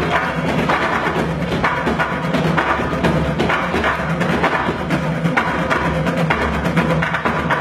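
Percussion ensemble drumming a fast, driving rhythm with sticks on large barrel drums and buckets.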